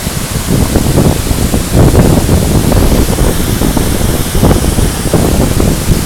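Waterfall rushing with a steady hiss, under an uneven low rumble of wind buffeting the microphone.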